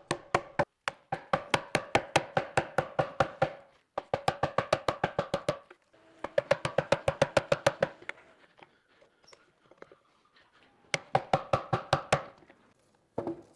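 A 2-inch timber-framing chisel being driven into wood to chop out a mortise: quick runs of sharp, ringing strikes, about five or six a second, broken by short pauses, with a few lighter taps in between.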